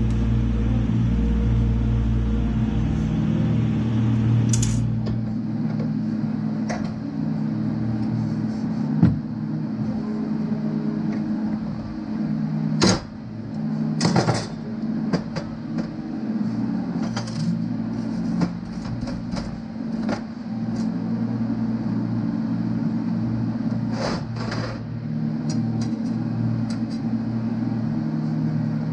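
Steel clanking and clicking on a steel welding table as a bar and tools are handled and set down, a dozen or so sharp clanks, the loudest about a third and halfway in. A steady low electrical hum runs under it.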